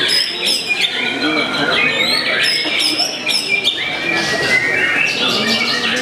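White-rumped shama singing: a fast, varied run of whistles, chirps and high sweeping notes.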